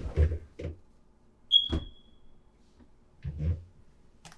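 Smoke detector giving one short, high-pitched chirp about one and a half seconds in, the warning that its batteries need replacing. Soft low thuds sound near the start and again a little past three seconds.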